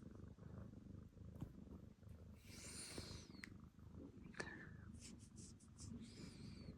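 Domestic cat purring faintly, a low continuous rumble, with a little soft rustling and a few small clicks.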